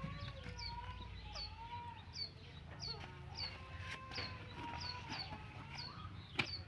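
Birds calling in the background: a short high chirp repeated about twice a second over a longer, wavering call lower in pitch, with a low rumble beneath. A single sharp click near the end.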